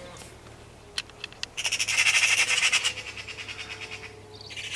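Eurasian magpies chattering: a harsh, fast rattle lasting over a second, starting about a second and a half in, and another rattle beginning near the end, with a few faint clicks before the first.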